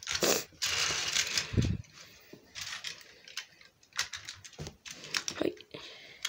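Plastic Plarail toy train cars being handled and set down on plastic track: scraping, rustling and clicks of plastic on plastic, with a low thump about a second and a half in.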